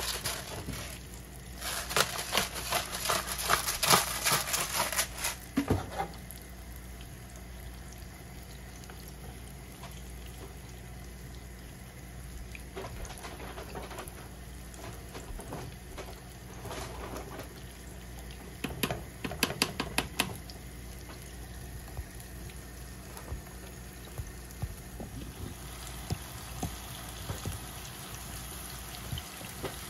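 Salmon fillets frying in oil in a pan, sizzling and crackling, loudest in the first five seconds and then a softer steady sizzle. A few scrapes and taps come in from a wooden spoon stirring quinoa in a small pot.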